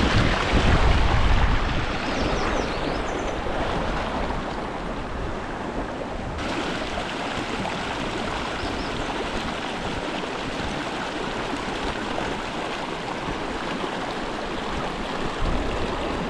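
Shallow creek water rushing and splashing over rocks in a steady rush, with a low rumble in the first couple of seconds.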